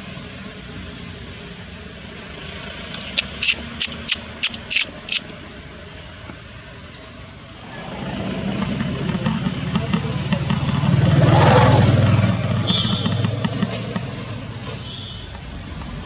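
A vehicle passing, its noise swelling to a peak about halfway through and then fading away. Before it, a quick run of about eight sharp clicks, and a few short high chirps scattered throughout.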